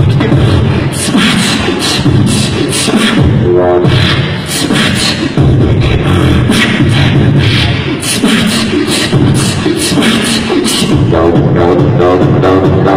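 Human beatboxing into a handheld microphone: a fast, steady rhythm of sharp vocal clicks and hisses over a continuous low bass, with short pitched vocal lines about four seconds in and again near the end.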